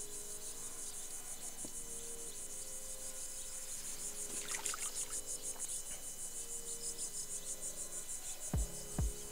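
Insects chirping in a fast, even, high-pitched pulse that runs steadily on, with two dull thumps near the end.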